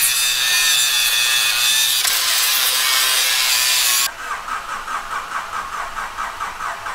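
Angle grinder cutting into steel: a loud, steady, high grinding whine that stops suddenly about four seconds in. Then a Honda Civic's starter cranks the engine in a quick, even rhythm of about five turns a second.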